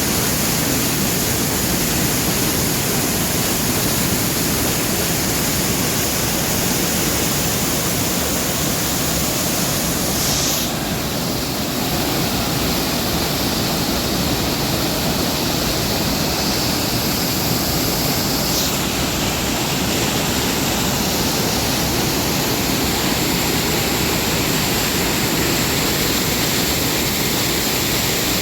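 Waterfall and river water rushing in a loud, steady wash of noise, which changes slightly in tone twice, about ten seconds in and again near nineteen seconds.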